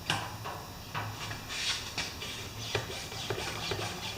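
Handling noises: a few light knocks and short scraping rubs, with a faint steady low hum behind them.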